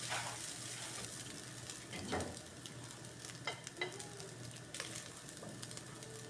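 Food sizzling in a hot frying pan, a steady hiss, with a few short scrapes and clicks of a utensil stirring it.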